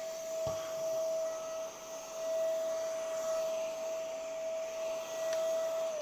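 Homeika cordless stick vacuum running on carpet: a steady high motor whine over the rush of airflow, with a light knock about half a second in. At the very end the whine starts to drop in pitch as the motor winds down.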